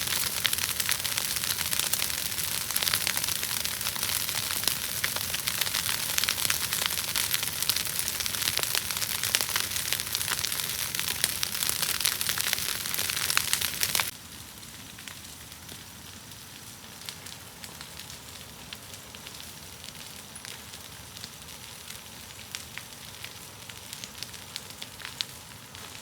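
Dense crackling and sizzling full of tiny pops, which cuts off abruptly about halfway through. Quieter hiss with scattered faint clicks follows.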